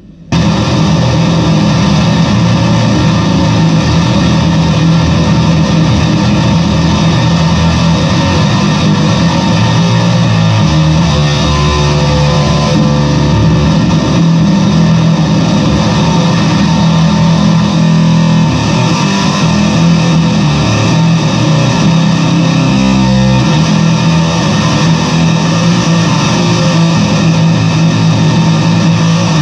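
Squier Bass VI six-string bass played through a fuzz pedal: a thick, heavily distorted tone with sustained notes and chords that change every few seconds.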